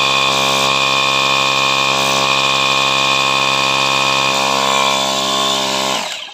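Mini 12V cordless tyre-inflator compressor running at full speed, a steady loud motor-and-piston drone with air hissing hard out of its open hose. It winds down and stops near the end.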